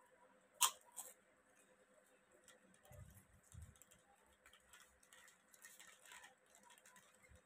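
Quiet crunching and crackling of a salted crunchy snack being eaten, with two sharp crackles about half a second and a second in and scattered small crunches after.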